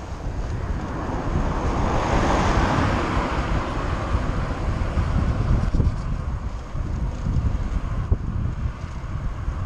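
Wind buffeting the microphone of a bicycle-mounted action camera, a steady low rumble, while riding on a wet road. A car passes on the wet road, its tyre hiss swelling about two seconds in and fading a few seconds later.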